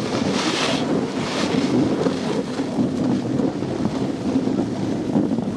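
Wind buffeting the microphone of a camera moving downhill, a steady low rumble, over skis hissing and scraping across packed snow in surges, the strongest about half a second in.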